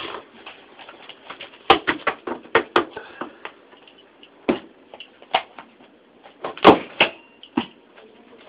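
A series of sharp clicks and knocks: a quick run of about a dozen in the first few seconds, then single ones spaced out, the loudest about two-thirds of the way through.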